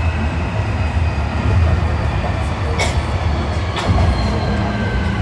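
Interior running sound of an Osaka Metro 1300 series subway train under way: a steady low rumble of wheels on rail under several thin whining tones from the Toyo IGBT inverter and traction motors, which sink slightly in pitch toward the end. Two sharp clicks sound about three and four seconds in.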